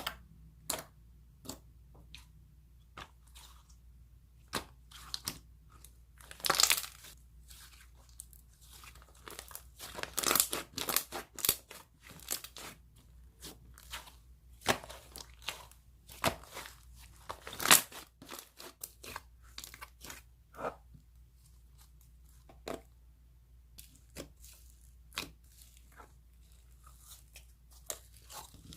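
Slime being squeezed, poked and stretched by hand, giving off irregular sticky clicks, pops and crackles, with denser bursts of crackling now and then.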